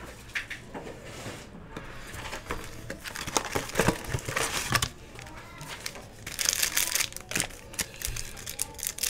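Foil trading-card pack wrappers crinkling and rustling as they are handled, with short sharp crackles and snaps of cardboard as the hobby box is opened. The crinkling is busiest a little past the middle.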